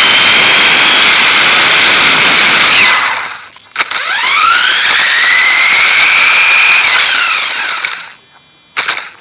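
Dromida DB4.18 RC buggy's electric motor whining up in pitch as it accelerates, with a hiss of tyres and gear noise. The sound drops away about three seconds in, a click, then the motor winds up again and falls back before cutting out near the end.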